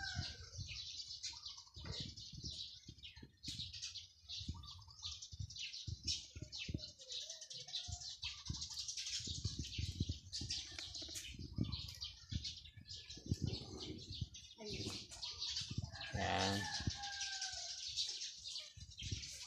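Birds chirping, with a rooster crowing once near the end.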